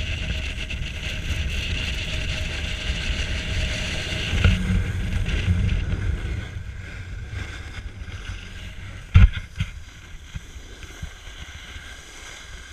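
Snowboard sliding over packed snow, with wind rushing over the camera microphone. A louder stretch comes about four and a half seconds in, and the sound drops away after about six seconds as the board slows to a stop. A single sharp knock comes about nine seconds in.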